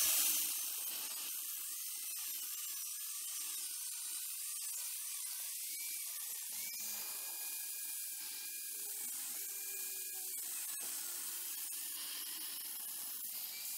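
Angle grinder with an abrasive disc cutting into a steel bracket, a steady high-pitched hiss with almost no low end.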